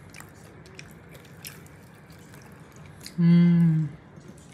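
Faint small clicks and mouth sounds of eating over a low room hum, then about three seconds in a person's voice holds a single drawn-out note for under a second, without words, dipping in pitch as it ends.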